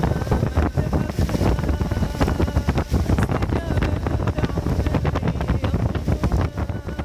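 Rainstorm: wind buffeting the microphone over falling rain, a loud steady rush full of irregular crackles.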